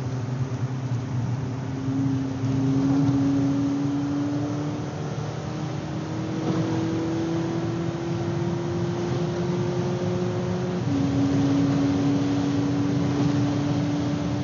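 Volkswagen Polo GTI's turbocharged 2.0-litre four-cylinder engine heard from inside the cabin under acceleration. The engine note climbs steadily, drops with an upshift about eleven seconds in, then starts climbing again, over a steady rush of road and tyre noise on the wet track.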